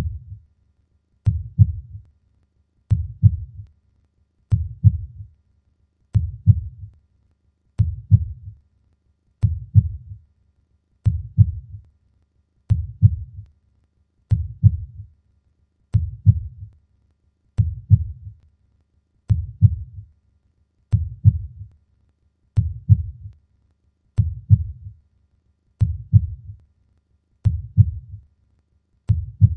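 Heartbeat sound effect: deep, evenly paced lub-dub double thumps, slow at about one beat every second and a half, with silence between beats.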